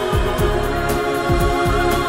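Background music with sustained chords over a steady beat of deep drum thumps.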